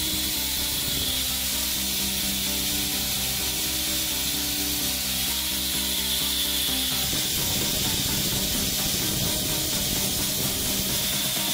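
Angle grinder fitted with a belt-sander attachment, running with a steady hiss as its narrow abrasive belt sands a rusty steel bar. About seven seconds in the sound turns grainier as the belt moves on to sanding a wooden plank. Background music plays underneath.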